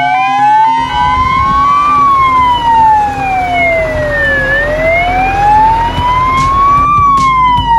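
Fire truck siren wailing in slow, smooth sweeps, rising for about two and a half seconds and falling for about two and a half seconds, over a low rumble.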